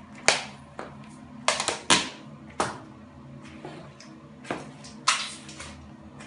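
Black stiletto heels stepping on and crushing pieces of orange on a ceramic tile floor: a string of sharp, irregular heel clacks, some trailing into a brief wet squish, the loudest about a third of a second in and about two seconds in.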